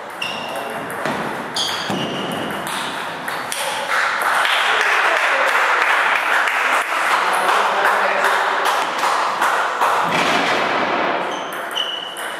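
Celluloid table tennis ball clicking off bats and table in a quick rally for the first two seconds, each hit with a short high ring. Then a loud even rushing noise for about six seconds, and a single ball bounce near the end.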